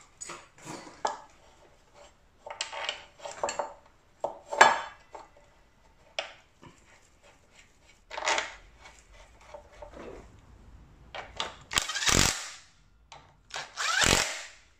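Metal clinks and clunks as a brake caliper with its pads is worked onto the front brake disc by hand, then near the end two short bursts of a cordless drill running the caliper mounting bolts in.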